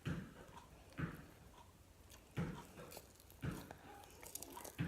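Close-up chewing of a sticky, gooey snack of melted marshmallow, chocolate chips and tortilla chips: soft mouth and jaw sounds, about one a second.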